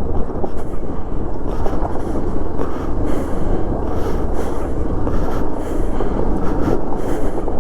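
Hero XPulse 200 4V motorcycle riding over rough, rocky trail: a steady, dense rumble of engine, tyres and rattling with no clear pitch.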